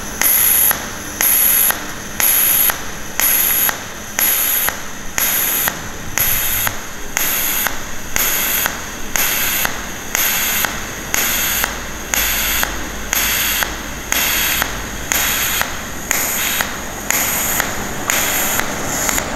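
TIG welding arc pulsing in an even rhythm: a loud buzzing hiss at the 90-ampere pulse alternating with a much quieter spell at the 9-ampere background current, about half a second each. The pulse program lets the torch step forward along the seam between pulses.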